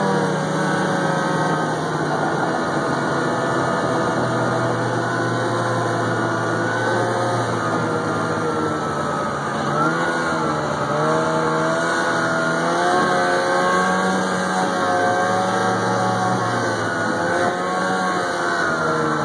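Arctic Cat snowmobile engine running under way, its pitch falling and rising with the throttle about ten seconds in and again near the end.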